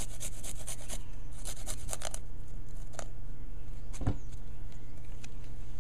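Fresh garlic grated on a flat metal hand grater: quick rasping strokes for about the first two seconds, then a few single clicks.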